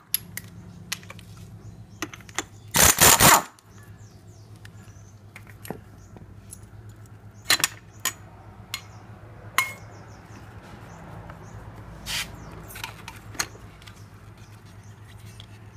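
Metal clinks and knocks of tools and parts as the clutch assembly is removed from a Yamaha Mio scooter's rear drive shaft. One loud rattling burst lasts about a second, about three seconds in.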